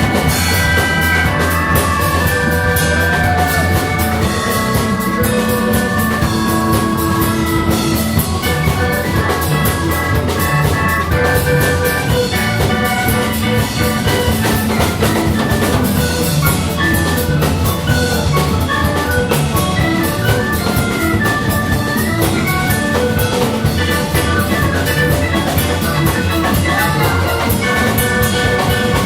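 Instrumental ensemble music: a busy, continuous piece with drum kit and cymbals under many quick melodic notes.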